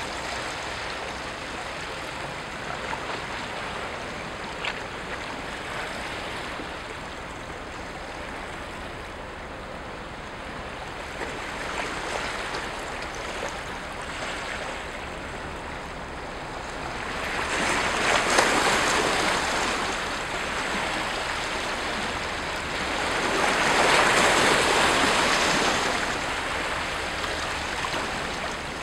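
Small waves lapping and washing against shoreline rocks, a steady watery hiss that swells into louder splashing twice in the second half.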